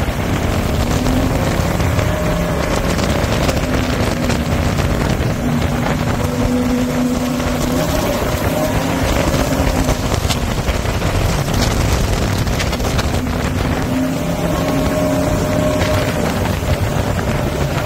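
Jet boat engine running hard at speed, its note stepping up and down as the throttle changes, with wind buffeting the microphone.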